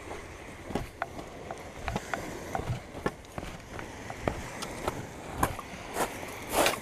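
Footsteps on a gravelly path and beach, an irregular step about every half second to second, over the rustle of a hand-held camera. A louder scrape comes near the end, as a hand reaches over the camera.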